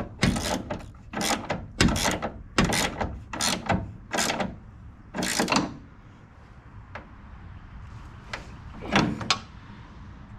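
Hand ratchet wrench clicking in short back-and-forth strokes, about seven in the first five seconds, as it runs a tailgate dampener's mounting stud into its hole. The strokes stop about halfway through, and a few light clicks follow.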